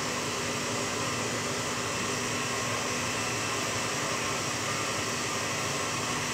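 KitchenAid stand mixer running steadily at speed, its wire whisk beating egg whites with sugar into meringue.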